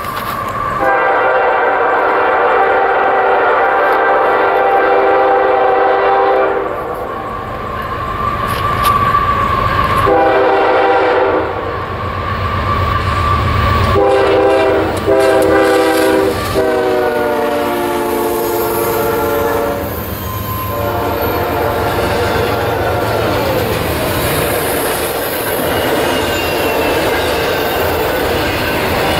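Freight locomotive's chime air horn blowing several blasts as the train approaches: a long one, a short one, then a long one that drops in pitch as the locomotive passes. After that, the double-stack container train rolls by with a steady rumble of wheels on rail.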